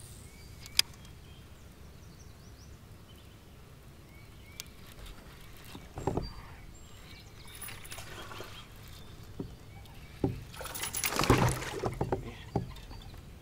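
A hooked fish splashing in the water against the side of a kayak as it is brought in by hand, loudest near the end. A sharp click comes about a second in and a knock about halfway through.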